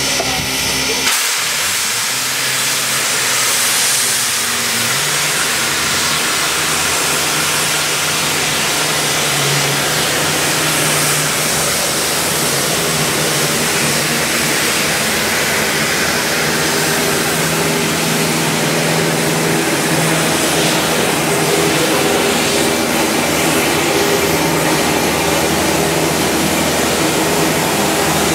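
Pere Marquette 1225, a 2-8-4 Berkshire steam locomotive, standing with steam hissing steadily, and a steady low hum joining beneath the hiss a few seconds in.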